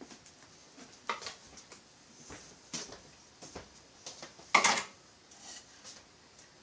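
Metal chainsaw engine parts clinking and knocking as they are handled, a few separate sharp clicks with the loudest knock about four and a half seconds in.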